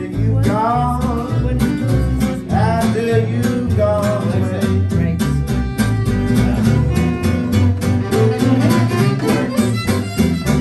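Live acoustic swing band playing: a fiddle carries the melody with sliding notes over steadily strummed acoustic guitars.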